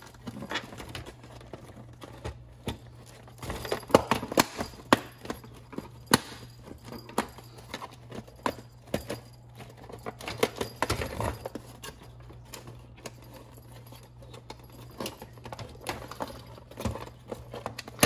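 Hard plastic parts of a Big Mouth Billy Bass singing fish being handled and pried apart: irregular clicks, taps and knocks as the motor and gearbox unit is worked off the plastic plaque.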